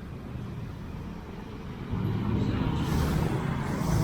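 Street traffic noise: a low rumble of passing vehicles that grows louder about two seconds in.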